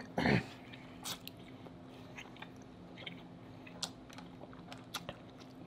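Close-up mouth sounds of eating butter-sauced shellfish meat: a short loud slurping mouth sound just after the start, then slow wet chewing with scattered sharp clicks and smacks.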